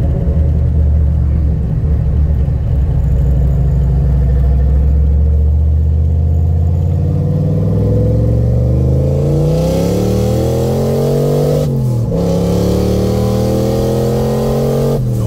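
Turbocharged 5.0 L V8 of a 1986 Ford Mustang heard from inside the cabin. It runs at a steady low drone, then accelerates with rising pitch and a growing hiss. About twelve seconds in the pitch drops suddenly at a gear change, and then it pulls again.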